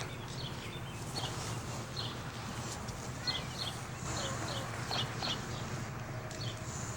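Small birds chirping in short, scattered high calls over a steady low hum.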